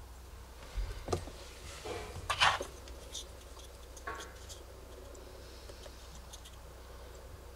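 A plastic motor-oil bottle and its screw cap handled: a run of plastic clicks and rattles with the loudest about two and a half seconds in, and a single click near four seconds.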